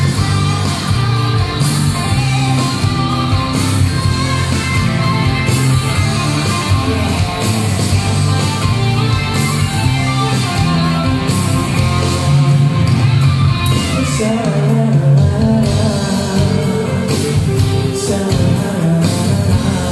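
Karaoke performance: a rock-style backing track with guitar playing through a PA speaker, with a man singing a Malay pop song into a microphone over it, his voice clearest in the second half.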